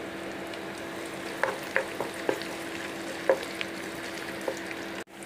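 Chopped onion sizzling in hot oil in a non-stick pan. From about a second and a half in, a spatula clicks and scrapes against the pan as the onion is stirred, and the sound cuts out briefly just before the end.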